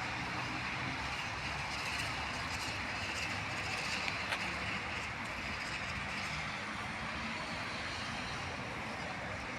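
Steady rushing background noise of the kind heard outdoors in a town, with a few faint ticks.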